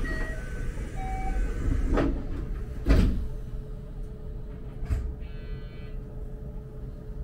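Electric commuter train with a steady electrical hum, a few short electronic beeps near the start, knocks and a loud thud about three seconds in, and a short buzz about five seconds in.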